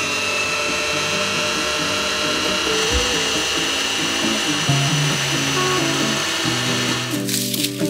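Electric sewing machine's motor running the bobbin winder, winding thread onto the bobbin: a steady high whine that cuts off near the end.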